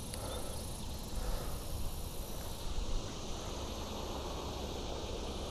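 Outdoor summer background: insects trilling steadily high up over a low rumble. The high trill drops away about two and a half seconds in.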